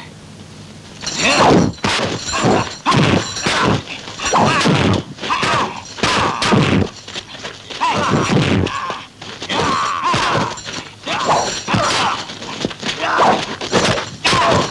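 Dubbed kung fu fight sound effects: a quick succession of punch and kick impacts, thuds and something shattering, starting about a second in.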